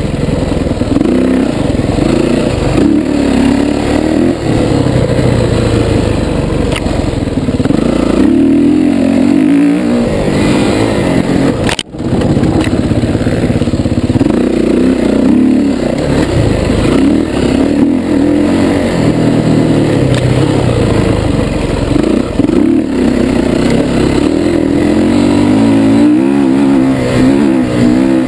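Dirt bike engine running hard, its revs rising and falling with the throttle over rough trail. The sound cuts out for an instant about twelve seconds in.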